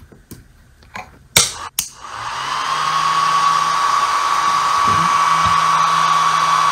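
A few clicks as the homemade laser is switched on, then its small cooling fans spin up about two seconds in and run steadily with a constant high whine and a low hum.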